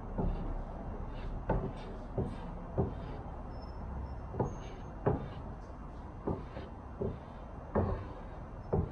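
Covering iron being pressed and moved along the edge of fabric stretched over an aircraft tail stabilizer, making about ten irregular light knocks and taps over a low steady hum.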